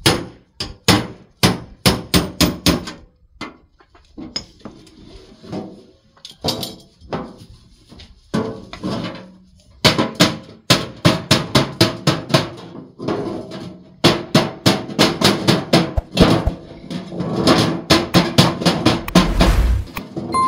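Rapid repeated knocking strikes, like hammering, about four a second: a short run at the start, scattered knocks through the middle, then a long steady run in the second half.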